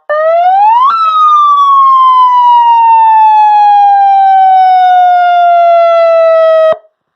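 Loud 200-watt electronic police siren sounding through its cone speaker. The tone sweeps quickly up in about a second, winds slowly down over about six seconds, then cuts off suddenly.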